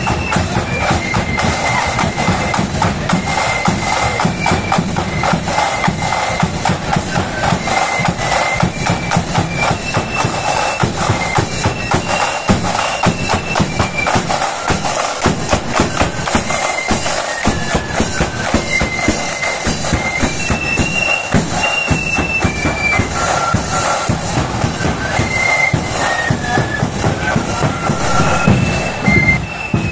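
Marching flute band playing: a high flute melody over rapid snare drumming and a steady bass drum beat.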